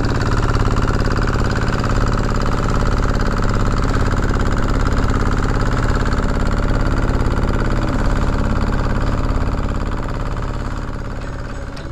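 Fishing boat's engine running steadily underway, fading out near the end.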